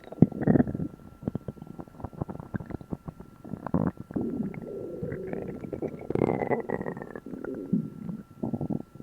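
A human stomach growling and gurgling loudly while digesting a meal eaten after a long gap without food. Irregular bubbly rumbles come with rapid popping clicks, and a high squeaky whine about six seconds in falls slightly in pitch.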